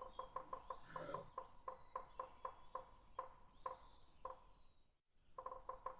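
Faint series of short, same-pitched chirps from an animal, repeating irregularly a few times a second, with a pause near the end.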